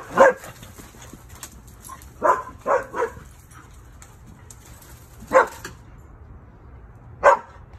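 Dog barking during play: six short barks, one at the start, a quick run of three around two to three seconds in, one more past five seconds and one near the end.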